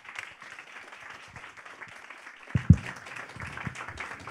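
Audience applauding, a steady patter of many hands, with a few low thumps about halfway through.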